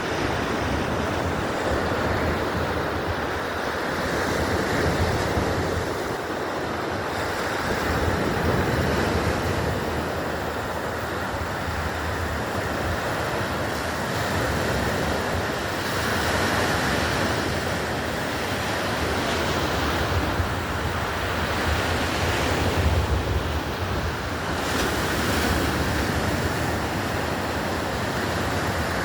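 Black Sea surf washing onto the shore, swelling and ebbing every few seconds, with wind rumbling on the microphone.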